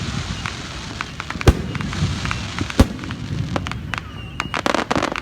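Aerial fireworks exploding: two loud booms about a second and a half apart, amid many sharp pops and crackles, with a dense run of crackling near the end.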